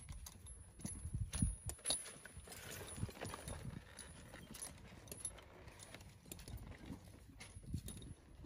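A western saddle and its tack being handled and set on a horse's back: irregular clinks of buckles and stirrup hardware, knocks and low thumps.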